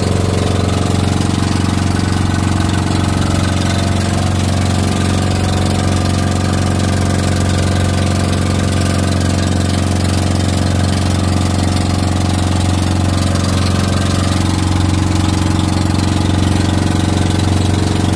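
Engine of a motorized outrigger fishing boat (bangka) running steadily under way, its note shifting slightly about three quarters of the way through.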